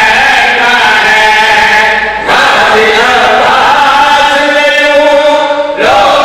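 A man's voice chanting long, drawn-out melodic phrases into a microphone, in the sung style of a Shia majlis recitation. There are brief breaks for breath about two seconds in and near the end.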